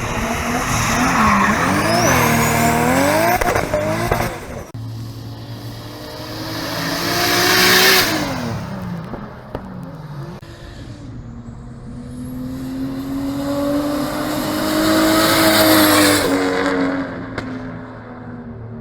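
Nissan Skyline GT-Rs with RB26DETT twin-turbo straight-six engines revving and driving past. The first few seconds hold quick blips of the throttle. Then two cars pass one after another, each swelling loud and fading, the first about eight seconds in and the second near sixteen seconds.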